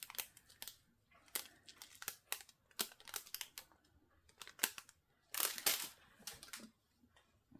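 Small plastic bags crinkling as they are handled, with scattered light clicks and taps and one longer crinkle about five seconds in.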